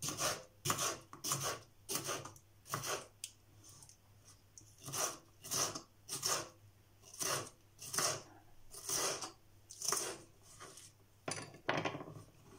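Kitchen knife cutting through produce on a wooden chopping board, a slice about every half second with a short pause in the middle. A couple of sharper knocks come near the end.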